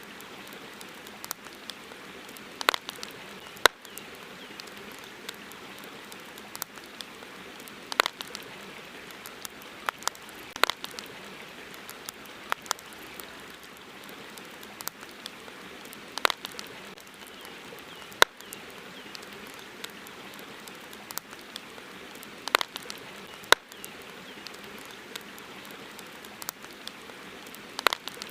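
Campfire crackling: sharp, irregular pops and snaps over a steady hiss.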